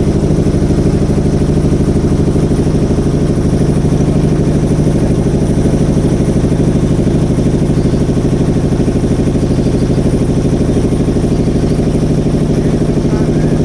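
Motorboat engine running steadily at an even pace, with a fast, regular chug.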